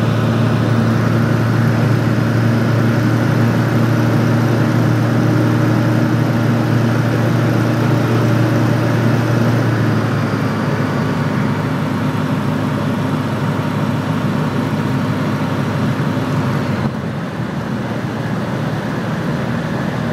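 Steady drone of a single-engine microlight's engine and propeller, heard inside the cockpit on the landing approach. The engine note shifts about halfway through, and it gets quieter near the end as power comes back for landing.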